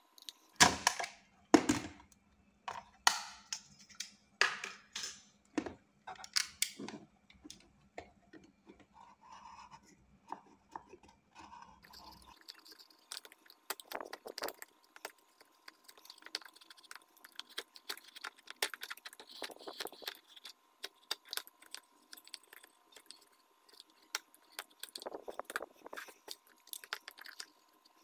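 A small box of PVC plastic handled on a cutting mat, giving several sharp plastic clacks and knocks over the first few seconds. Then a utility knife scraping and trimming the edge of the PVC, a dense run of small crisp scrapes and clicks.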